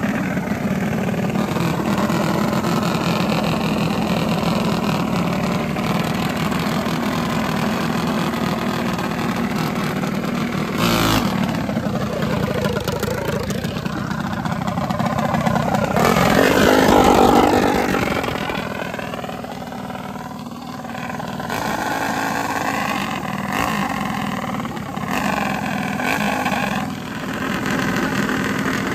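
Small minibike engines idling, with revs rising and falling. One engine climbs to the loudest point a little past the middle and then drops away, and more revving follows near the end. A sharp knock sounds just before halfway.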